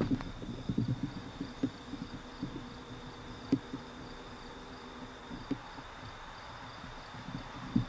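Insects chirping in a steady, even high-pitched pulse, with irregular low thuds and rustles of footsteps on grass, heaviest in the first second and again near the end.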